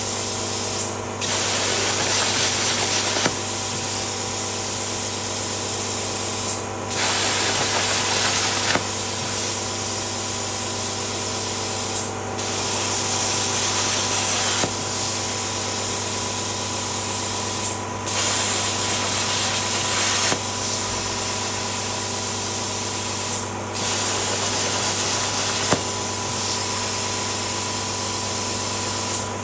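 Plasma torch on a CNC plasma table cutting, a steady hiss over a low hum. The hiss dips briefly about every five to six seconds and comes back louder for about two seconds each time.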